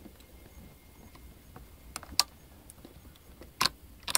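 Small clicks and taps of a laptop SO-DIMM memory module being handled and pressed down into its slot to seat it under the side latches: a few sharp clicks about two seconds in, and more near the end.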